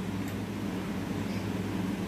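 Steady low hum with a faint hiss: background room noise from running equipment.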